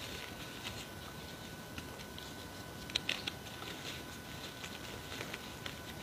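Loose gym chalk powder squeezed and crushed by hand in a tub: soft crunching with scattered small crackles, and a cluster of sharper crackles about three seconds in.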